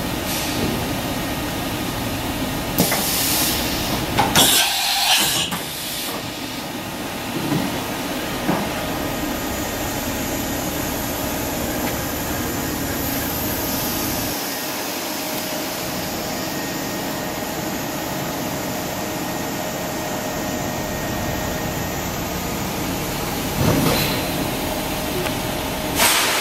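Doosan DNM400 vertical machining center running with a steady whirring hiss and a faint whine, broken by several short, loud bursts of hiss.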